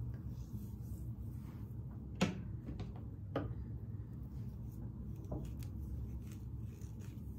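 Hair being sectioned and clipped by hand, with a few sharp clicks of a claw clip and comb. The loudest click comes about two seconds in and two fainter ones follow, over a steady low hum of room tone.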